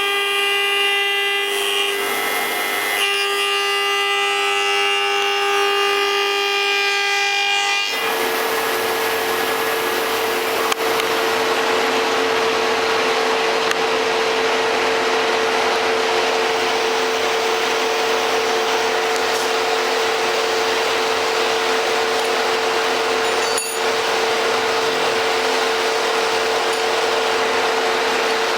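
FSSh-1A woodworking spindle moulder running with a steady, high-pitched motor whine. About eight seconds in, the tone shifts and an even rushing noise joins it.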